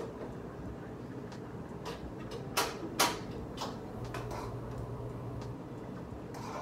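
Kitchen clatter at the stove: a few light knocks and clinks as pots, lids and containers are handled, with two sharper knocks close together a little before the middle.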